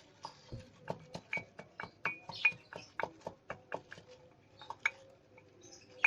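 Saga leaves being pounded in a hard vessel: irregular sharp knocks and clinks, about two to three a second, many with a short ringing tone.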